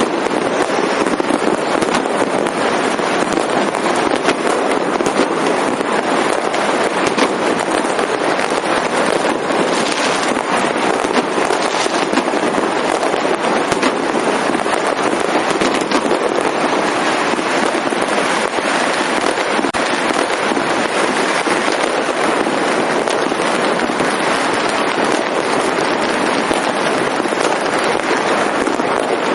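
Fireworks and firecrackers going off in a dense, unbroken crackle of countless small bangs at an even, loud level, with no pauses and no single bang standing out.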